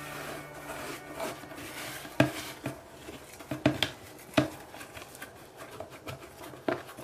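Hands squishing and kneading glittery white slime in a plastic bowl: soft rubbing with several sharp clicks, the loudest about two, four and four and a half seconds in.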